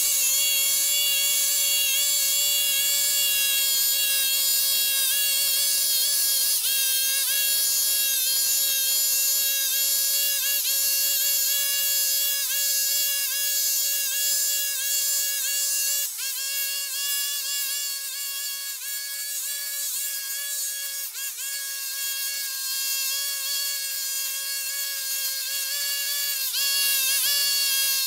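Petrol brush cutter (string trimmer) running at high revs while cutting grass: a steady high-pitched engine whine that dips briefly now and then. It fades somewhat in the second half and comes back louder near the end.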